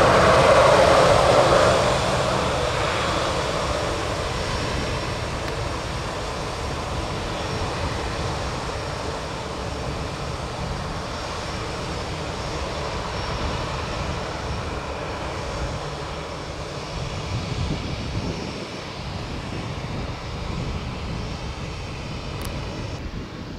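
Airbus A319 airliner's jet engines on the landing rollout, loudest in the first two seconds and then fading gradually to a steady lower noise as the aircraft slows and moves away down the runway.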